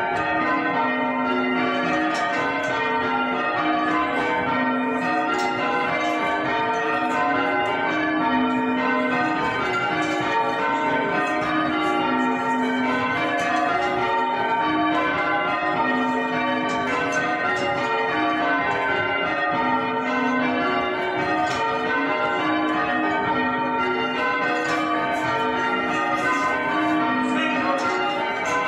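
Ring of six church bells rung full-circle by hand ropes, heard from the ringing chamber below the bells. The bells strike one after another in a steady, even rhythm, each note ringing on under the next.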